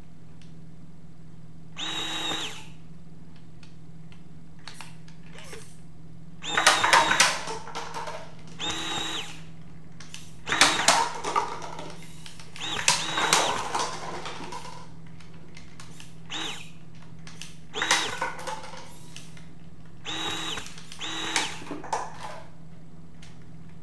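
Small electric motors of a homemade RC robot car with a rotary toy machine gun whirring in about nine short bursts as it turns and fires, the loudest bursts with a clatter of plastic cups being knocked down.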